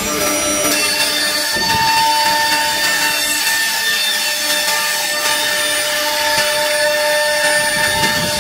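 Spindle of a Blue Elephant 1928 nesting CNC router cutting through a laminated board: a steady whine over the rasp of the bit in the wood, with a further tone joining just under a second in as the cut gets going.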